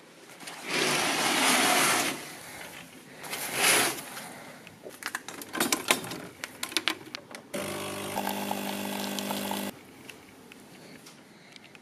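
Curtains swishing open, then clicks and knocks as a capsule coffee machine is loaded, and its pump buzzes steadily for about two seconds before cutting off as the coffee is brewed.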